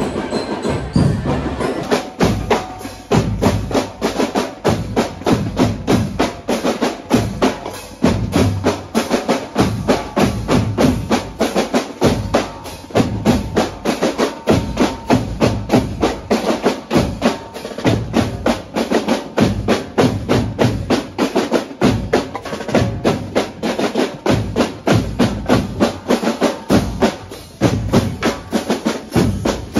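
Marching drum band of snare drums and bass drums playing a fast, steady beat, starting about two seconds in.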